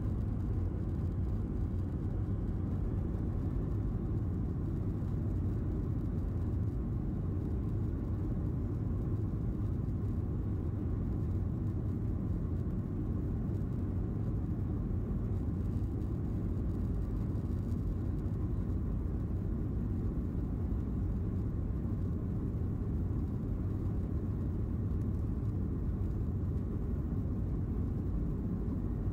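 Steady low rumble in the cabin of a Boeing 737-700 taxiing, its CFM56-7B engines at idle.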